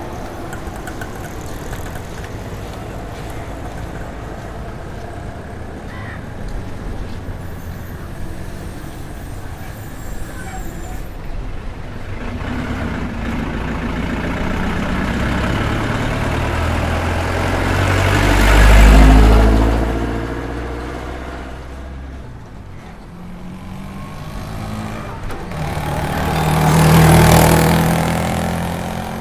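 Road traffic heard from the roadside: a steady hum of engines and tyres, with two vehicles passing close by, one swelling to its loudest about two-thirds of the way in and another near the end, each fading as it goes away.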